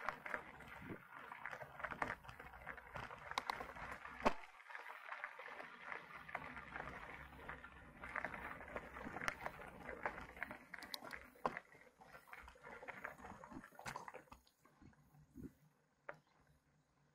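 Mountain bike rolling over a rough dirt trail: a steady crunch of tyres with scattered sharp clicks and rattles, dying down about fourteen seconds in to a few faint ticks.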